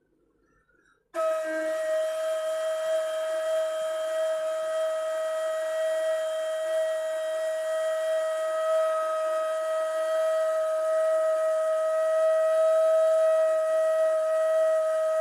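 A ney, the cane end-blown flute, comes in about a second in and holds one long, steady note with audible breath noise.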